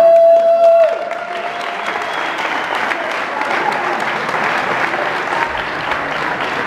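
A steady horn-like signal tone sounds for about a second at the start, then a studio audience applauds.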